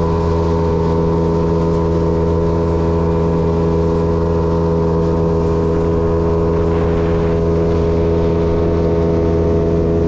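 Outboard motor of a PVC river boat running steadily under way, a loud, even engine drone at one unchanging pitch.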